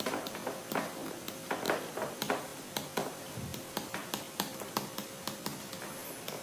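Light, sharp clicks and taps at an irregular pace, a few a second, over a faint steady hum.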